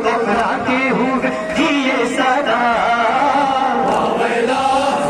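A man chanting a Kashmiri noha, a Shia mourning elegy, in a sung recitation into a handheld microphone, his voice amplified.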